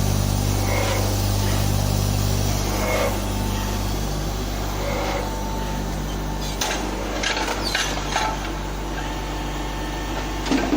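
Horizontal CNC brake-lining drilling machine running with a steady electric hum that drops in level about three seconds in. In the first half there are three short mechanical sounds about two seconds apart, and in the second half a run of sharp clicks and knocks.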